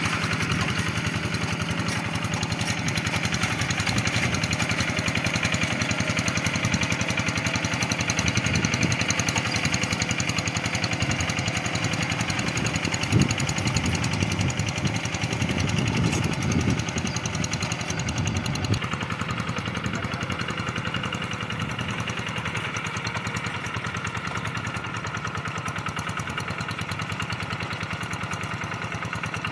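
Kubota RD85 single-cylinder diesel engine of a Quick G1000 two-wheel hand tractor running steadily under load while harrowing a flooded rice paddy, a rapid even chugging. It grows a little quieter about two-thirds of the way through.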